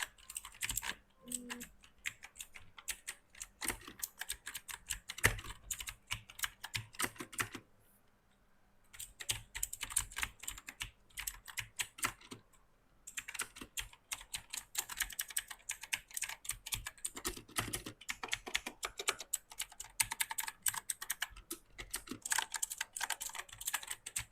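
Typing on an AULA F2058 mechanical keyboard: fast runs of sharp keystroke clicks, with a pause about eight seconds in and a shorter one a few seconds later.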